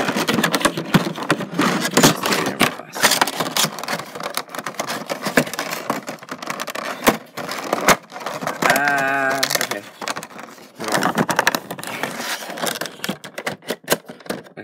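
Clicking, crackling and scraping of a Funko Pop's clear plastic insert and cardboard window box being handled close to the microphone. A brief wavering tone sounds about nine seconds in.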